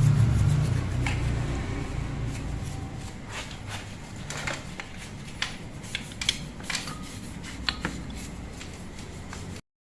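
Light scattered clicks and taps of small engine parts being handled and cleaned, over a low hum that fades away over the first few seconds. The sound drops out briefly near the end.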